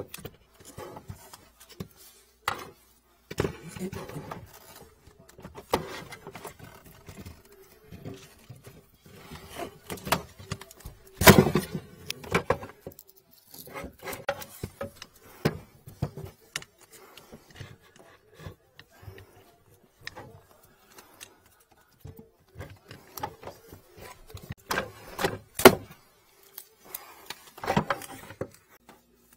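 Long-nosed pliers clinking, scraping and knocking against the metal of a floor drain as a sink blockage is grabbed and pulled out bit by bit. Irregular clicks and rattles, with the loudest knocks about eleven seconds in and again about twenty-six seconds in.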